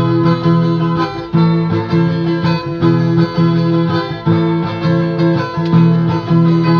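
A viola strummed in a steady, repeating rhythm, with no singing: the instrumental break between improvised verses of a Northeastern Brazilian cantoria.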